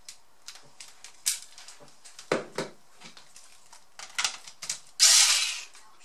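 Small clicks and taps of screws and the bit being handled on a laptop's plastic case, with a duller knock about two and a half seconds in. About five seconds in there is a short, loud whirr from the electric screwdriver.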